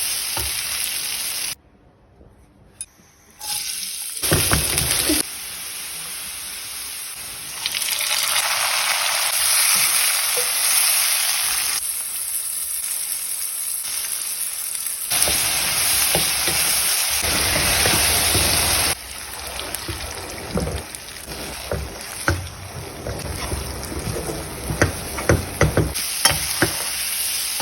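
Egg bhurji frying in hot oil in a pan, sizzling and being stirred, in several segments that change abruptly, with a short quiet gap about two seconds in. Near the end, sharp clicks of the utensil against the pan.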